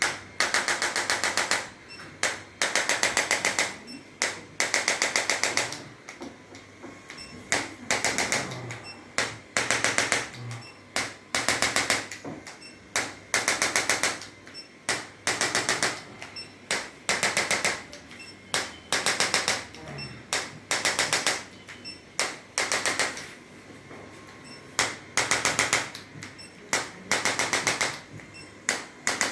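Electric chiropractic adjusting instrument firing rapid clicking taps in repeated bursts of about one to two seconds, with short pauses between them.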